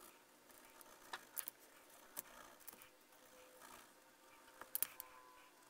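Faint scratching of a black pen nib on paper as a large area is filled in solid, with a few small sharp clicks, the loudest near the end.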